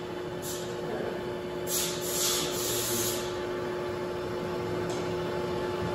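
Machine-shop equipment giving a steady hum, with several short bursts of hiss, the longest lasting over a second about two seconds in.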